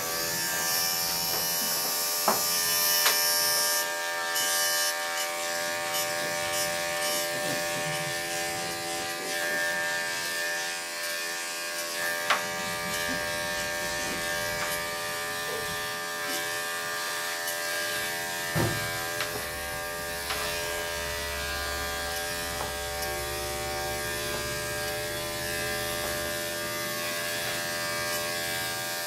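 Electric dog grooming clippers with a guard comb fitted, running steadily with an even motor hum while clipping a small dog's coat, with a few sharp clicks along the way.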